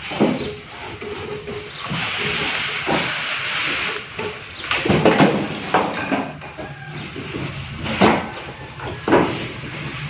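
A large cardboard refrigerator carton scraping and rustling as it is slid up off the fridge, with a hissing scrape in the first half and several sharp knocks and bumps about five, eight and nine seconds in.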